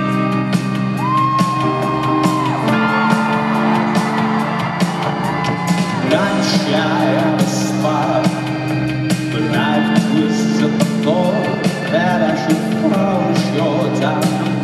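Rock band playing live in an arena, heard from the audience: held keyboard and guitar chords over a steady drum beat, with singing and whoops from the crowd.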